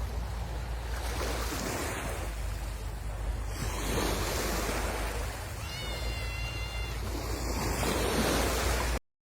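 Sea waves washing onto a beach in a steady swell-and-fade, with wind buffeting the microphone underneath. About six seconds in, a brief high whistle-like tone sounds over the surf, and the sound cuts off just before the end.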